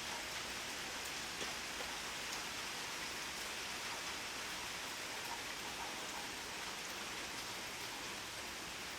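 Steady rainfall, drops pattering on a surface with scattered individual drop ticks.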